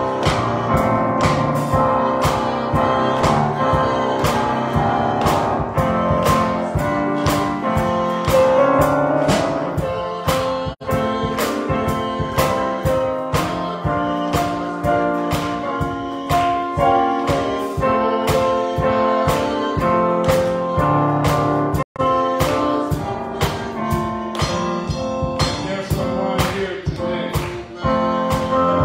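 Gospel music played on a church keyboard with a steady beat, with some singing. The sound cuts out for an instant twice.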